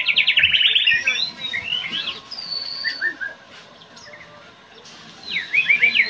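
White-rumped shama (murai batu) singing. It opens with a fast chattering run of down-slurred notes, then gives clear high whistles and short phrases, goes quieter midway, and starts another rapid run near the end.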